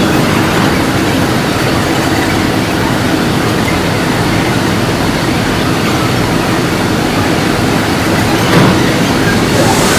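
Montreal Metro train standing at the platform with its doors open: a dense, steady rumble of train and platform noise, with one short low thump near the end.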